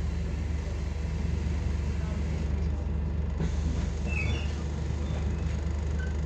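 Scania N230UD double-decker bus's diesel engine idling steadily while the bus stands still, heard from a passenger seat inside the bus. A few short high chirps come about four seconds in.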